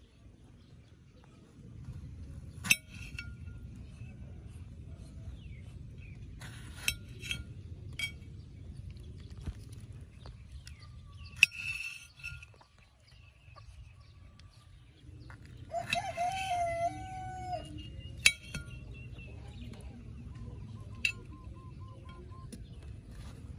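Sharp clicks of a steel kitchen knife striking a ceramic plate, several times, as a tomato is cut into wedges. About two-thirds of the way through, a rooster crows once for about a second and a half.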